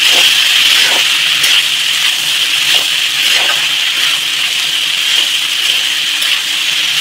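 Sliced spiny gourd (chathail) and potatoes sizzling in hot oil in a kadhai, with a steady hiss and a spatula scraping the pan now and then as the vegetables are stirred.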